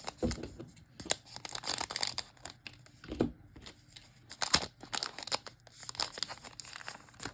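Trading card pack wrapper being torn open and crinkled by hand, an irregular run of crackling and tearing with a few sharper rips.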